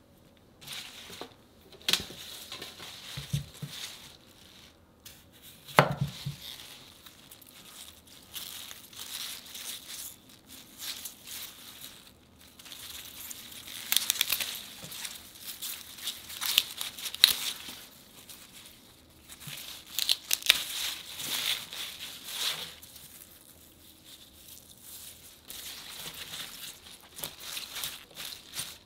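Radish greens rustling, snapping and tearing as the tough outer stalks are stripped off the bunch by hand, in irregular bursts. One dull thump stands out about six seconds in.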